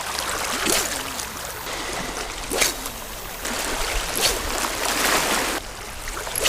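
Seawater washing and splashing around shoreline rocks, coming in several uneven surges.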